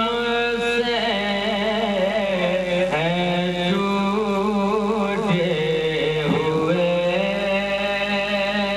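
A man singing an Urdu devotional salam (manqabat) in long held notes whose pitch bends and wavers.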